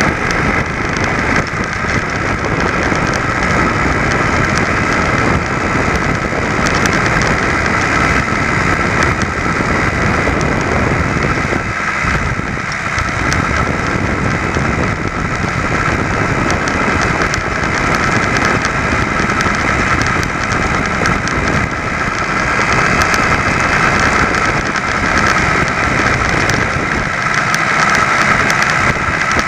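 Small ABG VAP two-stroke auxiliary bicycle engine running steadily as the moped rides along.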